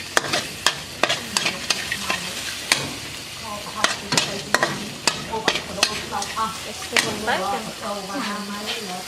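Food frying in a pan while it is stirred, with a steady sizzle and frequent sharp clicks of a utensil knocking and scraping against the pan.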